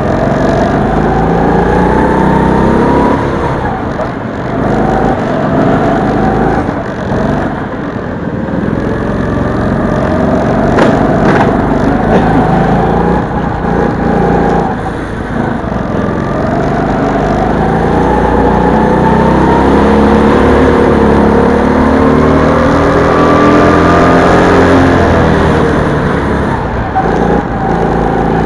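Go-kart motor heard from the driver's seat, its pitch climbing as the kart accelerates along the straights and dropping back for the corners, over and over, with the sound ringing in a large indoor hall. A few sharp knocks stand out about eleven seconds in.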